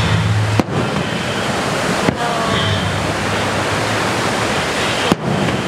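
A steady rushing noise under a fireworks display, broken by three sharp firework bangs about half a second, two seconds and five seconds in.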